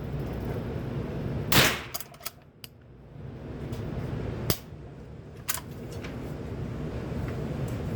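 Rimfire rifle shots from a .22LR lever-action rifle: one loud sharp crack about one and a half seconds in, followed by a few light clicks, then two fainter cracks about a second apart near the middle, over a steady low rumble.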